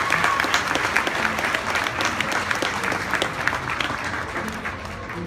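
Audience applauding, the clapping thinning and fading near the end.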